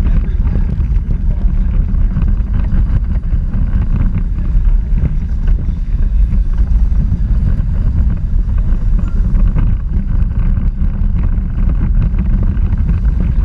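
Onboard sound of a small electric Power Racing Series car at speed: a loud, steady low rumble of wheels, frame rattle and wind buffeting the camera's microphone.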